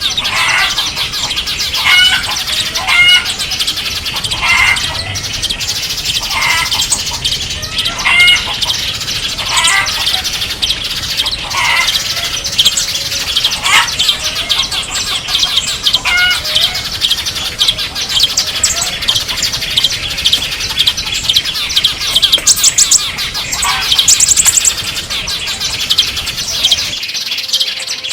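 A dense chorus of small songbirds chirping and twittering, with louder single call notes every second or two, mostly in the first half.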